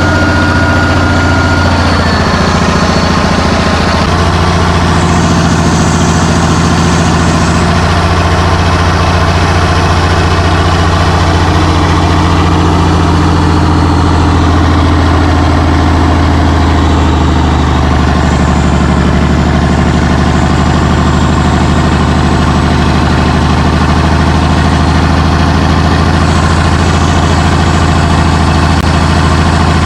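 Cummins 855 diesel engine running steadily at low speed, loud and deep, with a slight change in tone about four seconds in.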